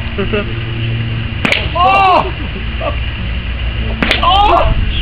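Two sharp whacks of a golf club striking a ball, about a second and a half in and again near the end, each followed at once by a man's exclaiming shout.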